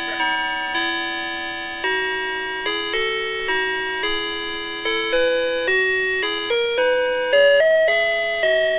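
Electronic chime melody from a musical Christmas toy: single ringing notes, each struck and fading, about two a second, climbing higher toward the end.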